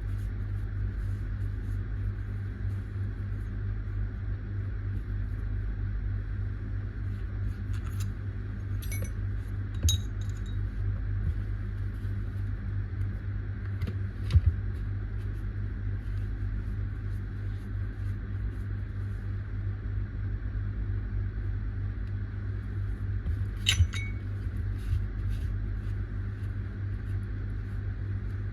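A steady low hum with a few short, sharp metallic clinks and clicks on top. The loudest click comes about fourteen seconds in and there is a small cluster near twenty-four seconds.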